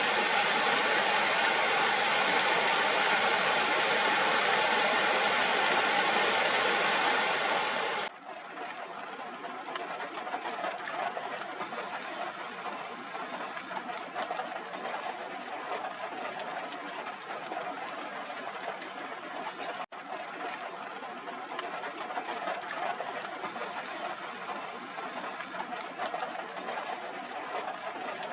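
Rushing water of a rain-swollen waterfall: a loud, even roar that changes sharply about eight seconds in to a softer, steadier rush for the rest.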